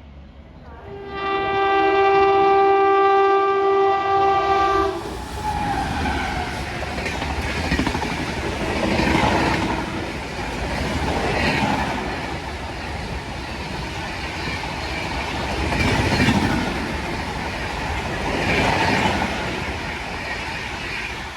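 Indian Railways train horn blowing one long steady note for about four seconds, then a train passing at speed with a continuous wheel-on-rail clatter that rises and falls.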